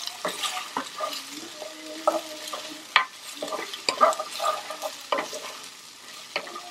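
Diced onion frying in oil in a nonstick pan, sizzling as a wooden spoon stirs and scrapes it, with the spoon knocking against the pan about once a second.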